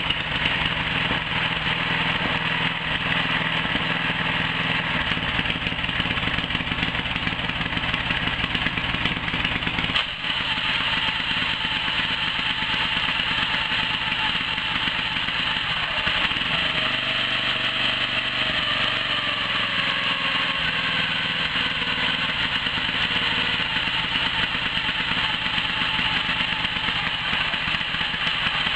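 Air-cooled four-stroke Briggs & Stratton vertical-shaft engine of a homemade outboard motor running steadily, with a short click about ten seconds in.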